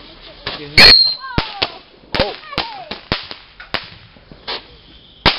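Consumer fireworks going off in a series of sharp bangs: one very loud report about a second in, then about seven smaller cracks at uneven intervals.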